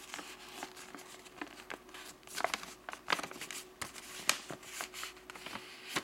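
Sheet of white printer paper crinkling as it is handled and folded, in many small, irregular crackles.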